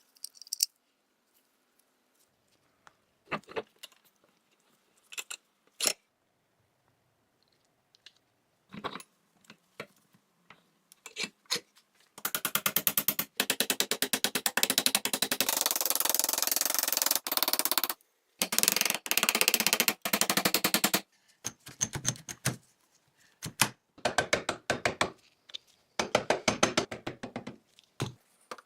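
Small steel parts of a 1911A1 pistol being handled on a bench: scattered clicks and knocks, then several seconds of rapid, fast-repeating scraping strokes about halfway through, and more bursts of quick clicking near the end.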